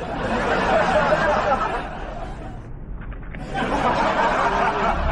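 Indistinct chatter and laughter from several people, in two bursts: one over the first two seconds and another from about three and a half seconds in.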